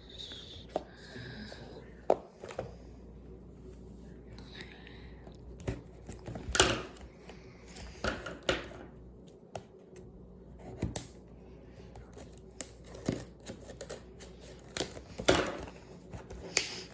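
Puzzle-cube packaging being handled and worked open by hand: scattered clicks and taps with a few short rustling scrapes.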